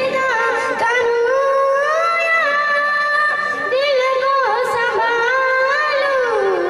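A young girl's voice singing through a microphone, one long devotional phrase of drawn-out held notes with ornamental bends, gliding down near the end.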